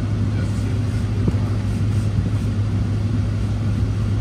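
Ram 1500 TRX pickup's supercharged 6.2-litre V8 and road noise heard from inside the cab while driving: a steady low drone that neither rises nor falls, with no revving.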